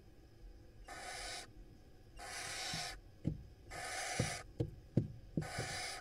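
Barn owl chicks hissing in the nest: four harsh hisses of about half a second each, evenly spaced. Between the last three come several short, sharp low knocks.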